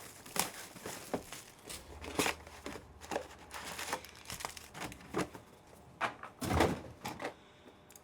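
Packs of trading cards being opened and handled: wrappers crinkling and tearing, with short rustles and scrapes of cards being slid and stacked. The loudest rustle comes about six and a half seconds in.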